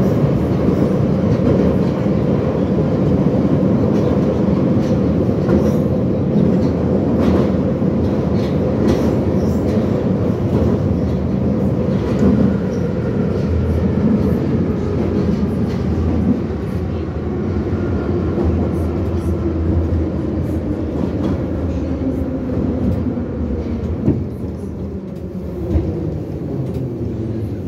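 Inside a Soviet-built 81-717 ('nomernoy') metro car running through the tunnel: a steady loud rumble of wheels on rail, with clicks from the rail joints. In the last third the noise eases and falling whines come in as the train slows into a station.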